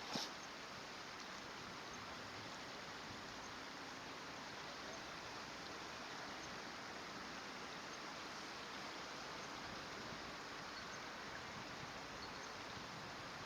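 Steady, even rush of flowing stream water, with one brief sharp high sound a fraction of a second in.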